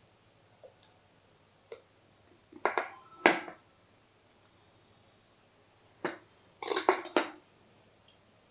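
A steel serving spoon clinking and scraping against stainless steel vessels as hot rice is served. A single clink comes about two seconds in, then two groups of clanks around three and seven seconds in, the first group the loudest.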